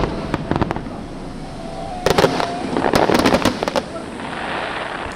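Fireworks crackling: rapid sharp pops in clusters, one near the start and a denser run about two to four seconds in, trailing off into a fading hiss.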